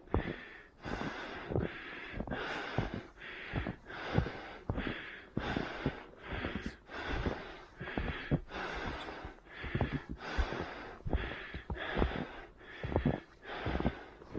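A runner's hard breathing and footsteps in snow, in a steady rhythm of about three strides every two seconds.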